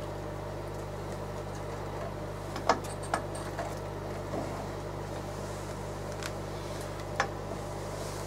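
A metal ladle clinking against a stainless steel stockpot four times, while broth is ladled out. Under it runs a steady low hum.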